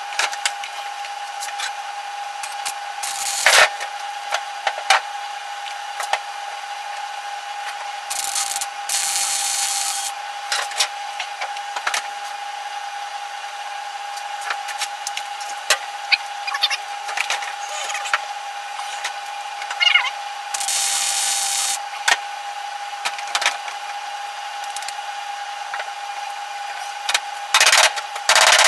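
Hand tools and a block of wood knocking and clattering on a car's sheet-steel floor pan, over a steady hum. Twice there are stretches of even hiss lasting a second or two.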